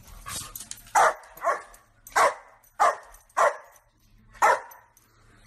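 Dog barking repeatedly: six short, loud barks, spaced about half a second to a second apart, with softer noises just before the first one.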